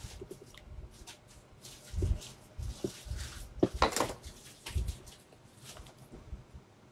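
Scattered light metal clicks and scrapes as steel pliers grip and work a thin steel wire for a hand-made eel hook, with a few louder knocks in the middle.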